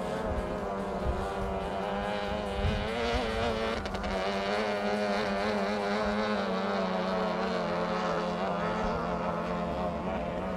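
18 HP outboard motor on a racing tunnel boat running at racing speed: one steady, buzzing engine note that wavers slightly.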